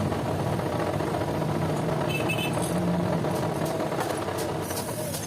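A machine running steadily, with light clicks in the second half.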